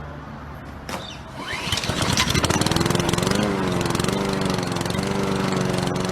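Small lawn mower engine being started: it catches about two seconds in and then runs steadily with a rapid firing beat.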